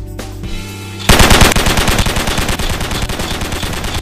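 A burst of rapid automatic machine-gun fire starts suddenly about a second in, loud at first and tailing off as the shots run on.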